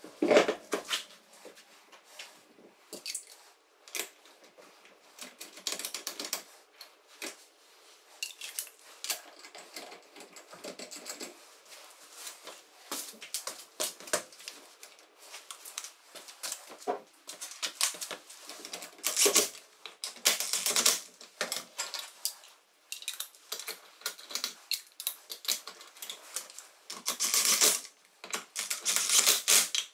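Cordless impact wrench running wheel lug nuts onto a UTV's front hub in several short bursts of rapid clatter, the longest near the end, with metallic clinks of nuts and tools handled in between. The nuts are only run snug, not hammered tight, ahead of torquing by hand.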